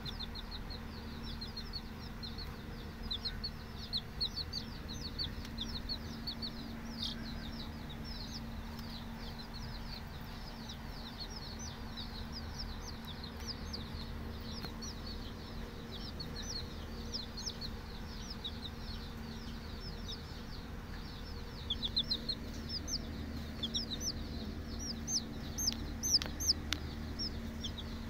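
Young chicks peeping continuously in a rapid stream of short high-pitched peeps, busier and louder near the end, over a steady low hum.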